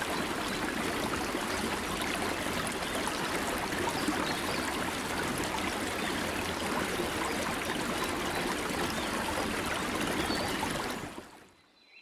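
Waterfall pouring into a rocky plunge pool: a steady, dense rush of falling water that fades out near the end.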